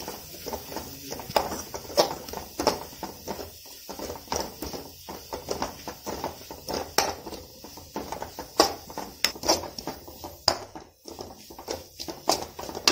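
A metal spoon scraping and clacking against an aluminium kadai while stirring fried onions and spice powders, in irregular strokes several times a second.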